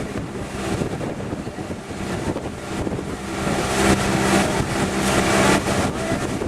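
Motorboat engine running steadily while under way, with wind buffeting the microphone and water rushing past; the wind noise swells louder a little past halfway.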